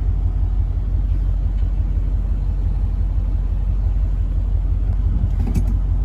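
Vehicle engine running, heard from inside the cab while it moves slowly: a steady low rumble.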